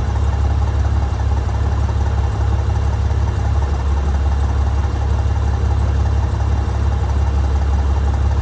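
Military helicopters running: the turning rotor and turbines of an AH-64 Apache on the ground close by, with a CH-47 Chinook hovering in the background. A loud, steady low rumble with a steady tone above it.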